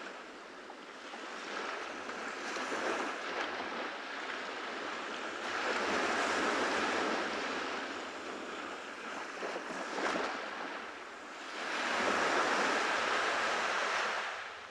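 Ocean waves breaking and washing up on a beach, the surf swelling louder about six seconds in and again near the end.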